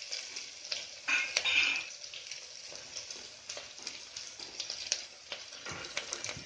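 Sliced onions sizzling and crackling in hot oil in an aluminium pressure cooker while a wooden spatula stirs them, louder for a moment about a second in. Near the end chopped garlic is tipped in, with a few sharper crackles.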